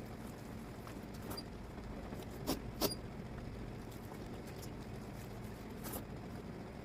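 Close-miked eating sounds of spicy mutton fat curry with rice: a few sharp, wet mouth clicks and smacks, the two loudest close together about two and a half seconds in, over a steady low background hum.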